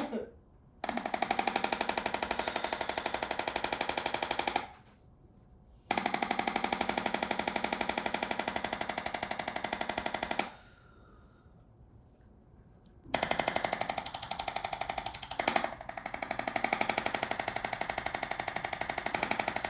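Handheld percussion massage gun running in three spells of several seconds each, a fast steady machine-gun-like hammering that stops and starts again twice.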